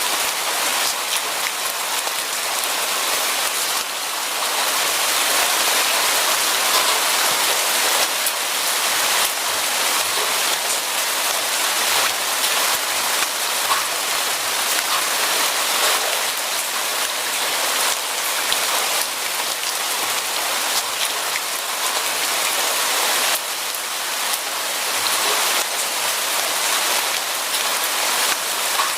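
Steady rain falling, a dense hiss of drops pattering on a surface with many small distinct drop impacts.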